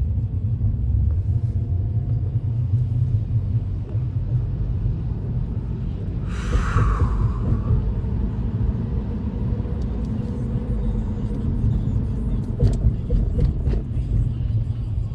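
Steady low rumble of a car's engine and tyres, heard from inside the cabin while driving. About six and a half seconds in comes a brief hissing swoosh that falls in pitch.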